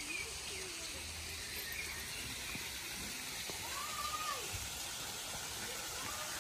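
Steady hiss of running water from a shallow stream and small waterfall, with a few faint bird chirps.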